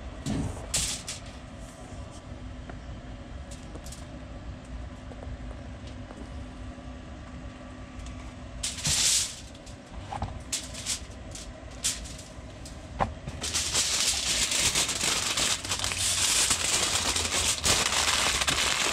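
Aluminium foil crinkling and crackling as it is folded and crimped around a smoked roast, dense and continuous from about thirteen seconds in. Before that, a steady low hum with scattered light clicks, and a brief loud rustle about nine seconds in.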